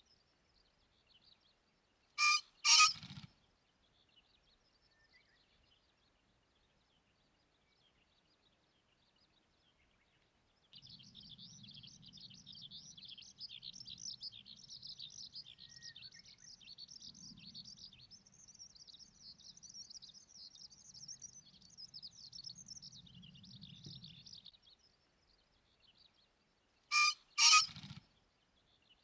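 Male green pheasant crowing, a harsh two-note 'ken-ken' followed by a brief whirr of wing-beats, heard twice: about two seconds in and again near the end. In between, a fainter steady high-pitched chirring runs for about fourteen seconds.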